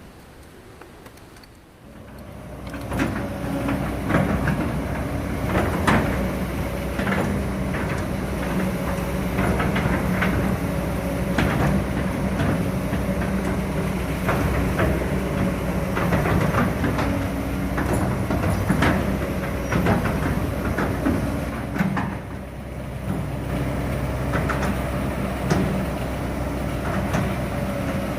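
Kobelco SK200-8 excavator running after a top overhaul, its Hino J05E diesel engine holding a steady hum, with frequent metallic clanks and knocks from the machine. The sound comes in about two seconds in. The engine is running normally again, its oil no longer mixed with water.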